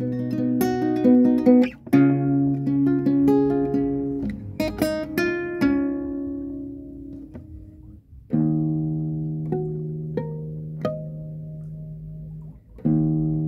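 Solo guitar being played: picked notes and arpeggiated chords, then a chord left ringing and fading for a few seconds before fresh chords are struck about two-thirds of the way through and again near the end.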